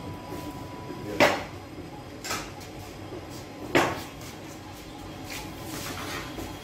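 Sharp knocks and clatter from a baker's long metal bread peel being handled at a Sangak bread oven: two loud knocks about two and a half seconds apart, with a lighter one between them, over a steady low background noise.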